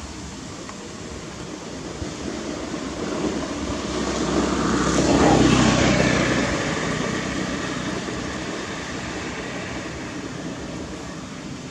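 A motor vehicle driving past: its engine and road noise build up, are loudest about five seconds in, then fade away.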